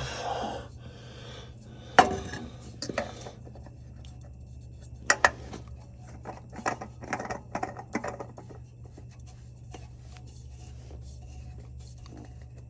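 Metal tools and parts clinking and scraping as a new oil filter is fitted: a sharp clank about two seconds in, two more about five seconds in, then a run of small clicks and scrapes, over a steady low hum.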